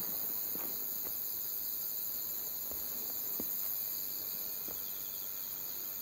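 Night chorus of crickets and other insects, a steady high shrill trilling, with a few faint knocks scattered through it.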